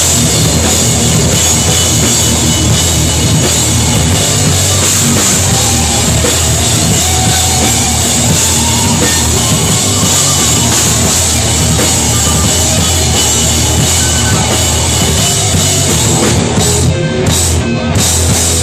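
Hardcore band playing live at full volume in a small packed room: pounding drum kit and cymbals under heavy, distorted rock. Near the end the song breaks into a few short stop hits, then it cuts off suddenly.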